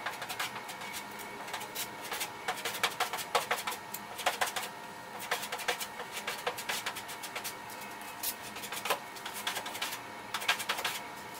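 Plastic body-filler spreader scraping and dabbing filler onto the bare-metal repair spots of a 2001 Honda Civic's steel hood: a run of short, irregular scrapes that thin out near the end. A faint steady hum runs underneath.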